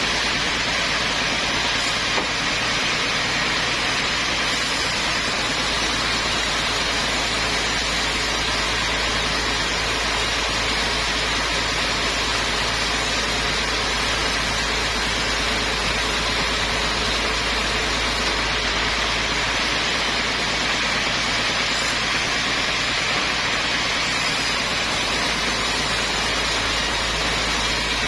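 Sawmill machinery running with a steady, unbroken noise.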